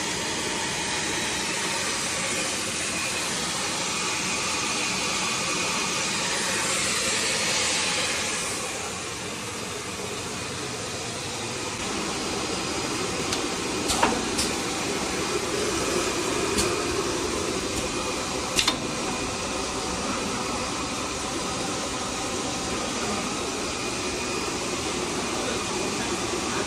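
Steady airy hiss of a hot-air welding machine's blower running, with a few sharp clicks around the middle.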